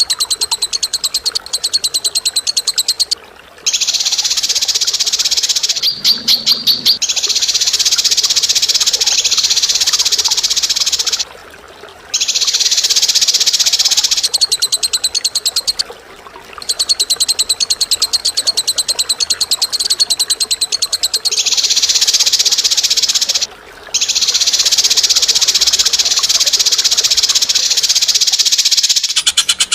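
Harsh, rapid rattling bird calls in long unbroken trains several seconds long, each a fast string of pulses, broken by short gaps about four times; a few separate pulses stand out about six seconds in.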